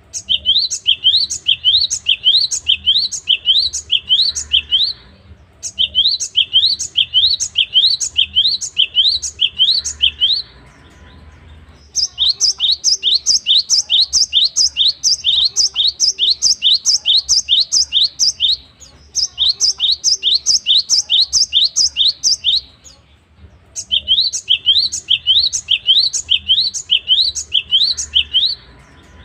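Cinereous tit (gelatik batu) singing fast strings of one note repeated over and over, each note a quick sweep in pitch. The song comes in bouts of five or six seconds with short pauses between them, about two to three notes a second. The bout in the middle of the stretch is higher and quicker.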